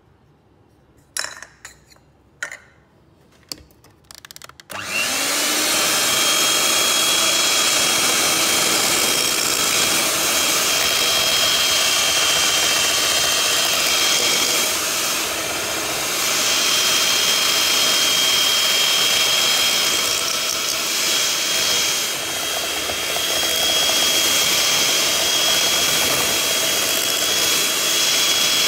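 Electric hand mixer beating a thick creamy filling in a bowl: a few sharp knocks first, then the motor starts about five seconds in, rising briefly, and runs steadily with a high whine.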